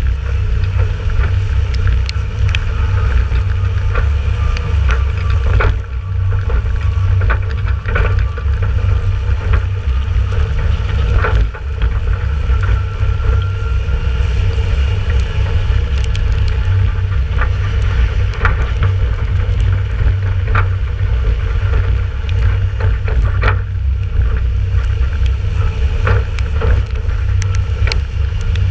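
Ford 7000 tractor's four-cylinder diesel engine running under way while towing an empty trailer, a heavy steady low rumble, with irregular sharp knocks and rattles scattered through it.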